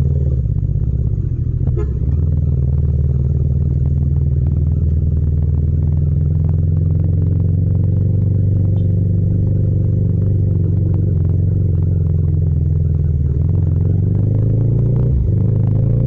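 Yamaha MT-07's parallel-twin engine running steadily at low revs in second gear as the bike rolls slowly through traffic, a deep even engine note with faint ticking above it.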